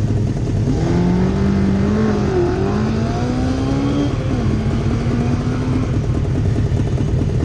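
Racing sidecar motorcycle engines idling close by with a rapid low pulse, while one engine is revved up and down in several smooth swells between about one and six seconds in.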